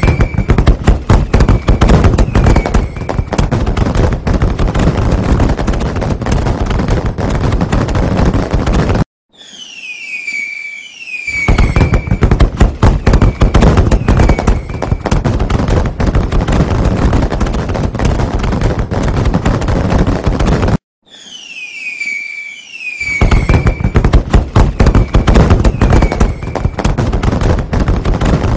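Fireworks: a few short whistles falling in pitch, then a dense, continuous barrage of crackling bangs. The same recording is looped, cutting off abruptly twice and restarting with the whistles.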